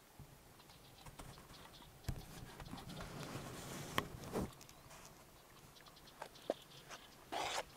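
Quiet, irregular footsteps on dry, packed dirt, starting about two seconds in, with a short scuff near the end.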